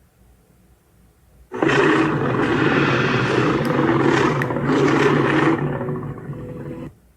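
A single long big-cat roar sound effect. It starts abruptly about a second and a half in, holds loud and rough for several seconds, and fades away near the end.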